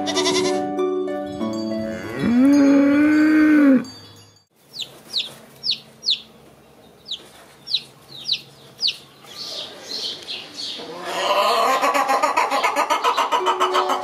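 A goat bleats once, one long call that rises, holds and falls. After a break, Araucana chicks peep: a string of short, high, falling chirps. Near the end, adult Araucana chickens call loudly with a rapid pulsing.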